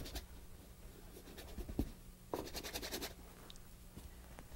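Bristle brush working oil paint onto a stretched canvas: faint, scratchy strokes, with a quick run of them about two and a half seconds in.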